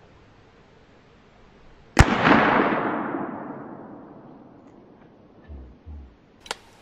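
A single gunshot about two seconds in, its echo rolling away over the next three seconds or so.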